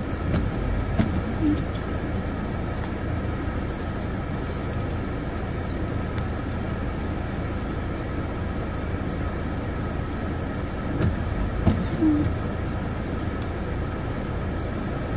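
Steady low outdoor rumble, with a few soft thumps about a second in and again near eleven to twelve seconds, and one brief high falling chirp a little over four seconds in.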